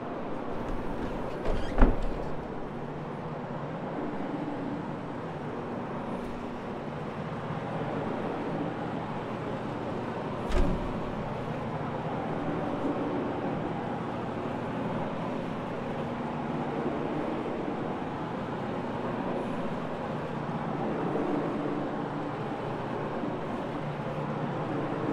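Rotary carpet-cleaning machine running steadily, its pad spinning on the carpet with a constant motor hum. Two sharp knocks, about two seconds in and again about ten seconds in.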